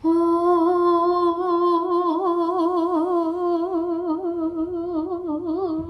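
A single voice holding one long sung or hummed note, steady at first and then wavering with a growing vibrato.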